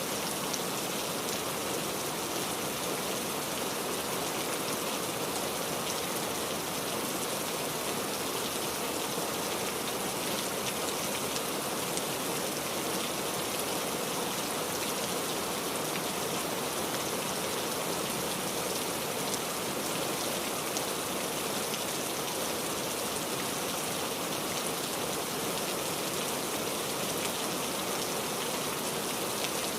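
Steady rain with raindrops pattering on a surface, an even hiss dotted with many small drop ticks.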